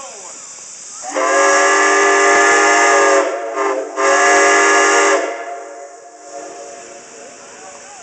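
Steam whistle blown in one long blast of about four seconds, with a steady tone that dips briefly in the middle before sounding full again and then cutting off. A steady hiss runs underneath.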